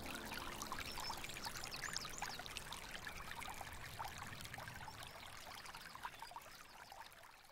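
Trickling, babbling water, the nature-sound tail of a relaxation music track, fading out steadily.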